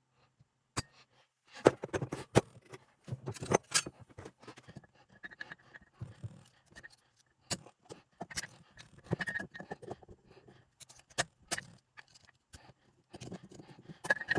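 Hand tools and metal parts of a 231J transfer case clicking, clinking and scraping during disassembly, in irregular sharp knocks with the loudest ones about two seconds in.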